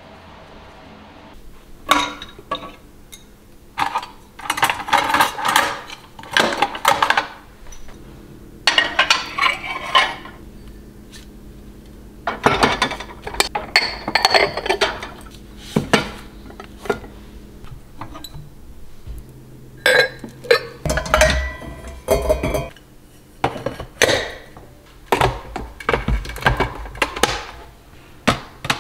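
Ceramic bowls and dishes clinking and knocking against each other and against a wire dish rack as they are lifted out and stacked, in bursts of handling with short pauses between.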